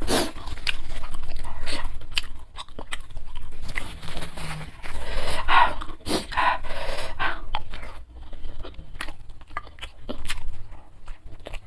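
Close-miked eating sounds: chewing and crunching mouthfuls with many small wet clicks, broken up by loud, heavy huffing breaths from the chili heat.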